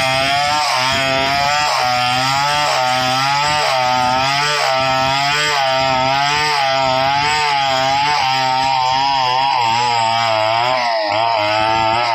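Stihl 070 two-stroke chainsaw running at high revs while rip-cutting a log lengthwise, the engine note wavering up and down in a steady rhythm as the chain works through the wood.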